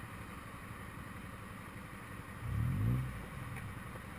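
Motorcycle engine idling, with one brief throttle rev about two and a half seconds in that rises in pitch and then falls back.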